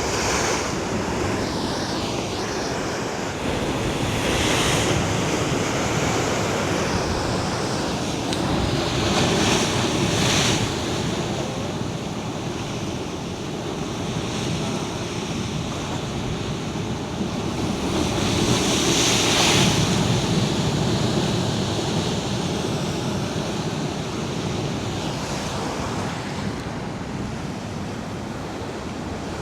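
Ocean waves surging and breaking at high tide, a constant rush with three louder swells, mixed with strong wind buffeting the microphone.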